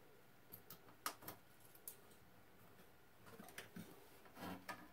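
Near silence with a few faint, short clicks and taps from small screws and a screwdriver against the sheet-metal radio chassis as it is handled; the clearest click comes about a second in.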